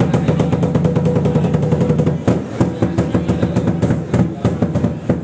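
Busy temple courtyard din: a crowd's voices under a fast, continuous clatter of repeated metallic strikes.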